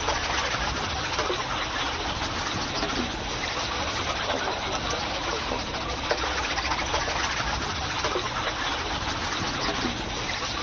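Coloured pencils scratching on paper, a dense, unbroken rasp peppered with small ticks.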